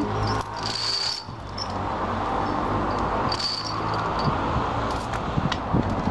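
Steel tyre-protection chain links clinking and rattling as the chain is handled on a large wheel-loader tyre, with a few sharper clicks about two thirds of the way through. A steady low hum runs underneath.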